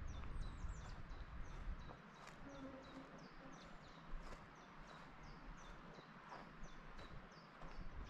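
Woodland birdsong: several small birds calling, with short, high, repeated chirps, many falling in pitch. Under it, a low rumble fades out about two seconds in and returns near the end.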